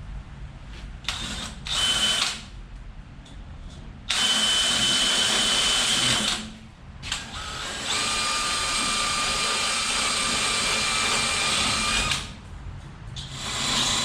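Step drill cutting into a metal plate in bursts: two short cuts, then a cut of about two seconds, a longer one of about four seconds, and a short one near the end. Each cut carries a steady high-pitched ring over the cutting noise.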